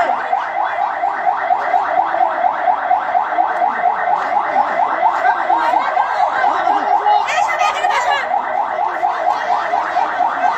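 An electronic alarm-like warble: a rising chirp repeated rapidly, about five times a second, without a break. Just after seven seconds in, a brief hissy burst sounds over it.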